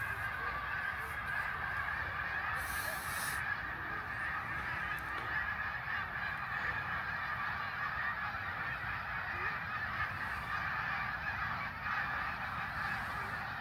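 A huge flock of snow geese calling all at once: a dense, continuous chorus of honking that never breaks.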